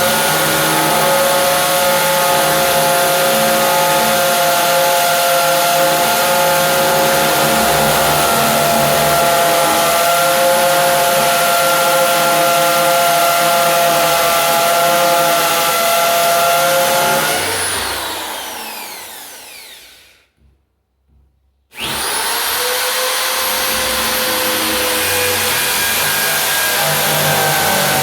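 Britânia BFU01 electric drill running at a steady speed. After about seventeen seconds it is released and its motor winds down, falling in pitch to a stop, then it starts again abruptly about two seconds later and runs on steadily.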